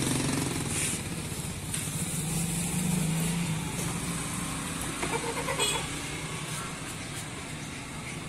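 An engine running steadily, a little louder for a second or so around the third second.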